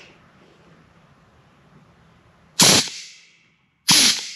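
Pneumatic air snips cutting 1.5-inch hex crab-trap wire, giving two sharp cuts about a second and a half apart in the second half. Each cut snaps loudly and trails off over about half a second.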